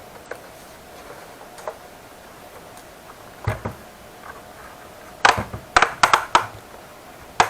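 Plastic snap latches of a laptop's bottom case clicking loose as a plastic pry pick works around the edge: one sharp click about halfway through, then a quick run of about five clicks and snaps near the end.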